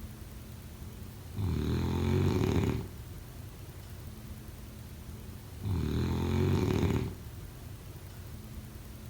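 Someone snoring in their sleep: two snores, each about a second and a half long, about four seconds apart, with quieter stretches between.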